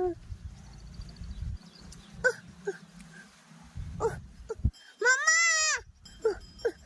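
An animal bleating: a few short calls falling in pitch, then one long bleat about five seconds in that rises and falls in pitch.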